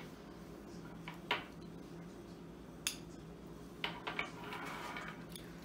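Metal spoons clinking against small glass cups while ice cream is scooped: a handful of sharp, scattered clinks.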